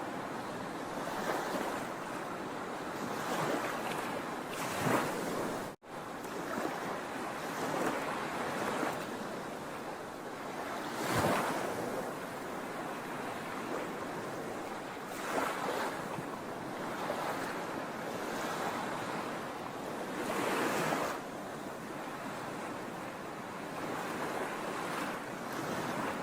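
Sea waves washing onto a shore: a steady surf with a louder wave surging in every few seconds. The sound cuts out for an instant about six seconds in.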